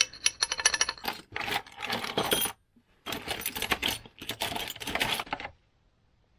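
Small metal parts (bushes, washers, spacers) clinking and rattling against each other as a gloved hand rummages through a box of them. Two spells of rapid clinking of a couple of seconds each, with a short pause between, then it stops near the end.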